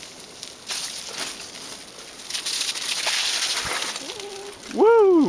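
Bicycle tyres hissing as they roll over wet, slushy pavement, in uneven waves. Near the end a voice briefly calls out, with a rising-and-falling pitch; this is the loudest sound.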